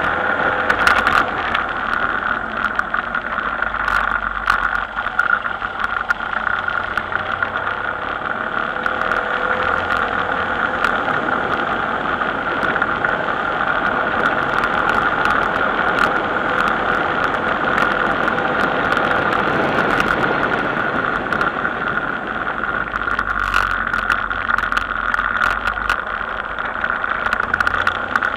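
A vehicle travelling along a road: steady engine and road noise picked up by a camera mounted on it.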